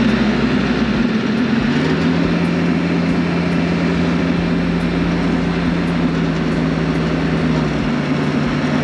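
Compact tractor engine held at PTO speed, driving a direct-drive PTO stump grinder that spins free without cutting; a steady loud running hum, smooth and balanced on its bearings.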